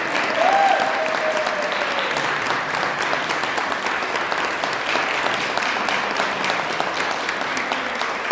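Audience applauding steadily, a dense patter of many hands clapping, with one voice calling out briefly about half a second in.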